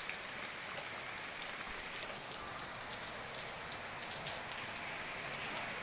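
Steady heavy rain falling, an even hiss with scattered sharp drips and ticks of drops striking surfaces.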